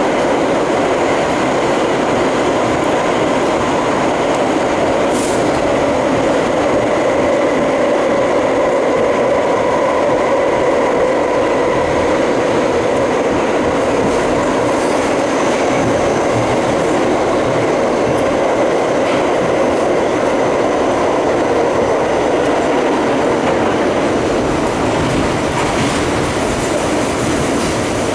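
Inside a Bombardier-built R62A New York subway car running at speed: a loud, steady rumble and rush of wheels on rail and tunnel noise, with a faint steady tone above it.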